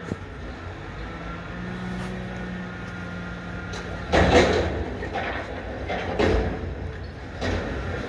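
Mack McNeilus front-loader garbage truck hoisting a dumpster over its cab: the engine runs up and the hydraulics hum steadily as the forks lift. About four seconds in there is a loud metallic clatter as the dumpster tips over the hopper, then several more bangs about a second apart.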